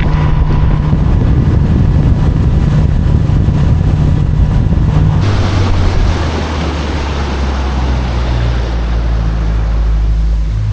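Boat's outboard motor running under way, with the rush of water and wind. About five seconds in the engine note drops lower and the rushing grows louder.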